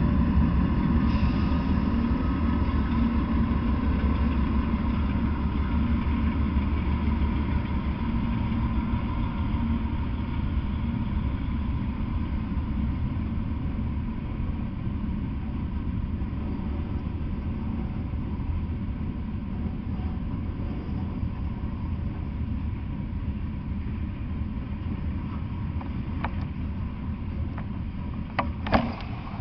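Freight train passing close by: the Norfolk Southern diesel locomotive's engine rumble, loudest at first, gives way to the steadier rolling noise of freight cars on the rails and slowly fades. Two sharp clicks come near the end.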